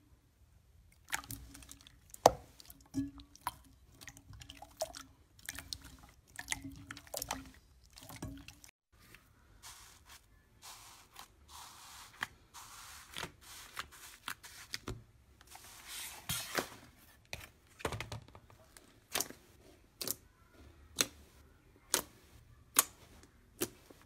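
Hands working slime, with sticky squishes and a rapid run of sharp clicking pops. After a break, short gritty scraping strokes come from kinetic sand being pressed and cut, mixed with clicks. Toward the end, fingers press into black slime, making sharp pops about once a second.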